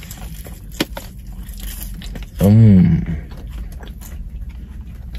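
A man chewing a mouthful of McDonald's french fries close to a lapel microphone: faint wet crunching, with a sharp click about a second in. About two and a half seconds in comes a short hummed 'mmm' of enjoyment that rises and falls in pitch, the loudest sound here. A low steady hum lies underneath.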